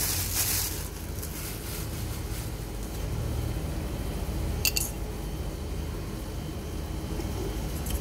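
Plastic wrapping rustling briefly as it is pulled away, then a steady low background rumble with one sharp click about five seconds in.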